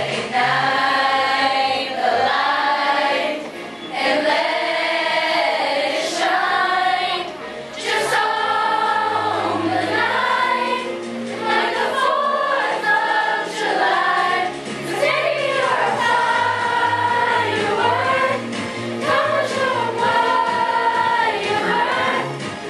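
School chorus singing a pop song in unison over an accompaniment track with a steady bass line.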